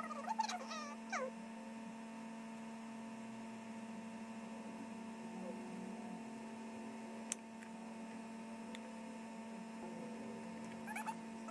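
Steady electrical hum running throughout, with a few short sliding chirps in the first second and again near the end, and a single sharp click about seven seconds in.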